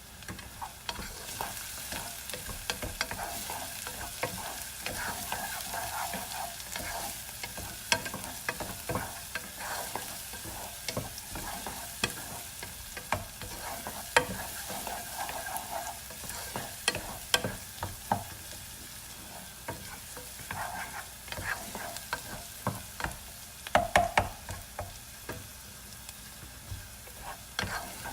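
Chopped onion and garlic sizzling steadily in a Copper Chef non-stick pan, stirred with a utensil that clicks and scrapes against the pan, with a few louder knocks near the end.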